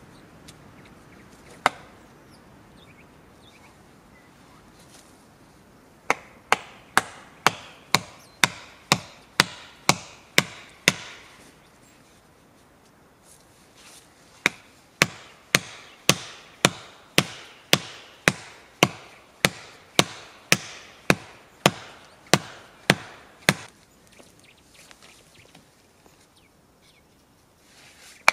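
A hand tool striking wood in a steady rhythm of about two blows a second: one lone strike, then a run of about ten blows, a pause of a few seconds, and a longer run of about twenty that stops near the end.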